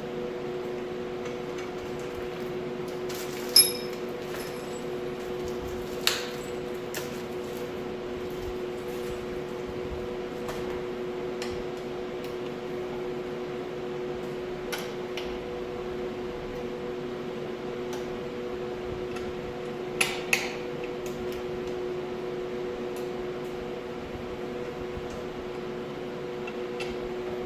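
A few sharp metal clinks and knocks as office-chair parts are handled during assembly: a ringing clink about three and a half seconds in, another about six seconds in, and a quick pair about twenty seconds in. A steady two-tone hum runs underneath.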